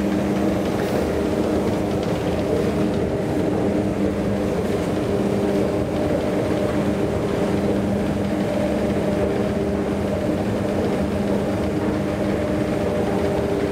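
Steady mechanical hum holding several low tones, unchanged throughout.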